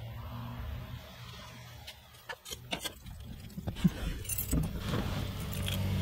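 Handling noises inside a car: a cluster of sharp clicks and knocks between about two and five seconds in, with a short metallic jingle among them, over a steady low hum.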